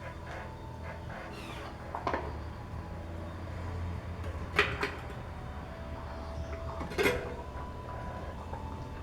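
Hand work on a BMX front wheel being trued: three sharp clicks or knocks, roughly two and a half seconds apart, the last two the loudest, over a steady low hum.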